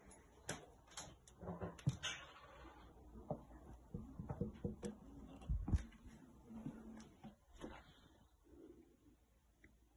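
Scattered soft knocks, clicks and rustles of footsteps and of a handheld phone camera being moved. They thin out over the last few seconds.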